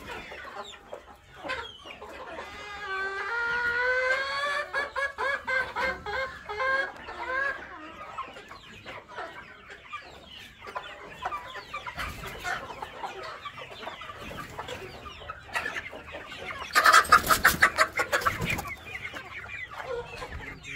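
A flock of Sasso chickens clucking and calling, with a run of loud rising calls a few seconds in. Near the end comes the loudest sound, a brief, fast rattling burst.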